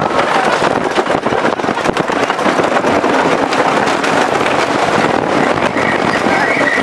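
Custom Coasters International wooden roller coaster train rattling and clattering loudly over its wooden track at speed, a dense stream of knocks. A thin, steady high whine joins near the end.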